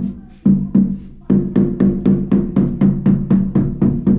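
Rubber mallet tapping a large 120x60 ceramic wall tile to bed it into the adhesive: a run of sharp knocks, about four a second, each with a short low ring. The knocks pause briefly twice in the first second or so, then keep a steady beat.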